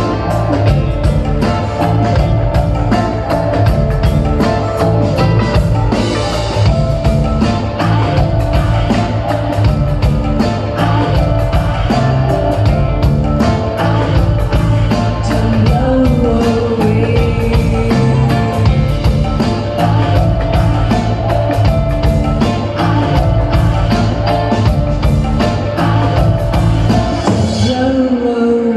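Live rock band playing: drum kit, electric guitars and bass under a female lead vocal. About a second before the end the drums and band drop out, leaving one held tone.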